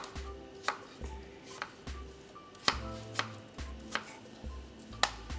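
Chef's knife cutting peeled Granny Smith apple into small cubes on a plastic cutting board: sharp knocks of the blade on the board at uneven intervals, about one every half second to a second.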